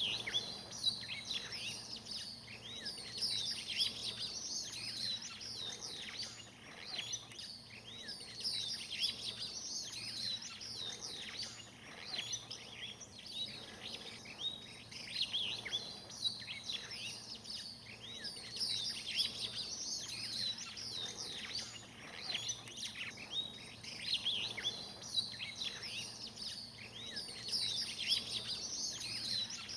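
A dense chorus of many birds chirping and calling without pause: overlapping short high chirps and quick sweeping notes. A faint steady low hum runs underneath.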